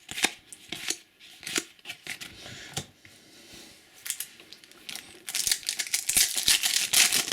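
Trading cards being handled, with scattered sharp clicks and snaps. About five seconds in, a dense crinkling of a card packet wrapper starts.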